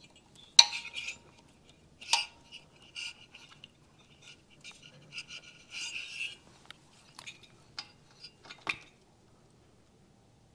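Spark plug cap being worked on and off a motorcycle spark plug by hand: sharp clicks, the loudest about half a second and two seconds in, with rubbing and smaller clicks between.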